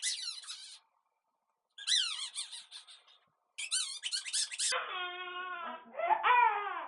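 A newborn baby's high-pitched, wavering squeaks come in three short bursts. Then, about five seconds in, it starts a lower, steadier cry with falling wails.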